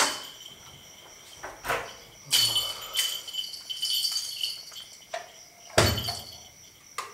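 Someone coming in through a door: knocks and clatter, a jingling rattle from about two to four and a half seconds in, and a heavy thump near six seconds in. A steady high insect trill runs underneath.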